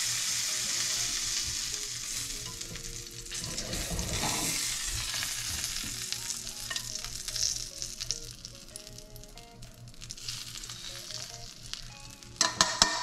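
Butter, steak juices, rosemary and garlic sizzling in a hot frying pan after a steak has been fried and basted in it. The sizzle is loudest at first and slowly dies down, with a few sharp knocks near the end.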